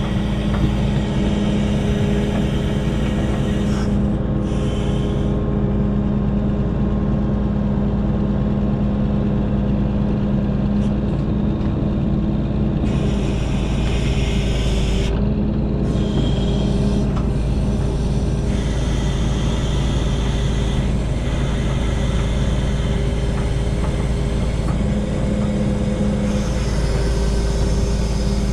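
Diesel engine of a self-loading log truck running steadily at a constant pitch while its log loader is worked.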